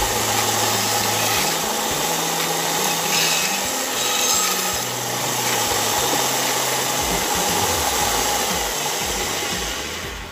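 Band saw running and cutting through a wooden block, a steady rasping noise with a constant whine from the blade and motor.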